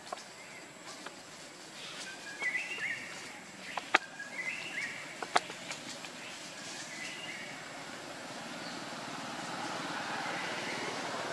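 Short high chirping calls in three brief phrases about two seconds apart, with two sharp clicks between them. A soft rustling hiss builds near the end.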